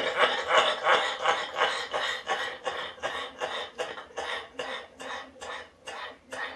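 A man's long fit of short coughs, about three a second, loud at first and slowly fading, brought on by smoke he has just inhaled.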